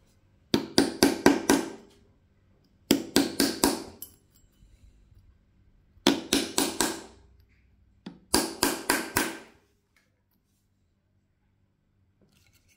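A hammer tapping a metal pin set in the brass head of a spent shotgun shell, in four quick bursts of about four blows each, every blow with a short metallic ring. It is flattening the burr inside the primer hole to close the hole a little.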